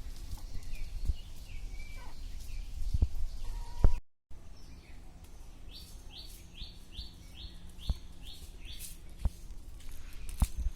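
Small birds chirping outdoors, with a run of about eight quick chirps at roughly three a second in the second half, over low wind-like rumble and a few sharp knocks. The sound cuts out briefly about four seconds in.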